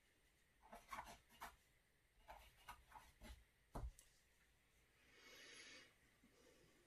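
Faint tabletop handling sounds of painting tools: a scatter of light taps and clicks over the first four seconds, the strongest with a dull thump, then a soft scraping rub about five seconds in.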